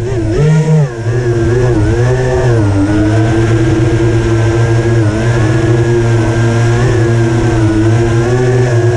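FPV quadcopter's brushless motors and propellers as heard from its onboard camera: the pitch swings up and down with the throttle for the first few seconds, then settles into a steady whine as it flies slowly at low height.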